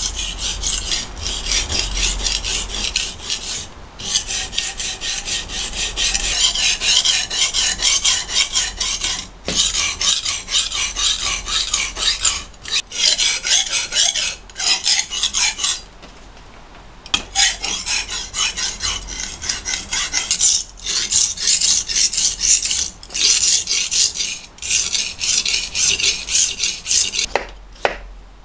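Kitchen knife being sharpened on a whetstone: the steel blade rasps across the stone in rapid back-and-forth strokes, with a few short pauses.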